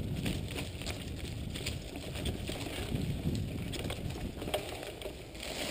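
Mountain bike riding over a dirt forest trail: tyres rumbling on the ground and the bike rattling, with wind noise on the microphone and scattered light clicks and knocks.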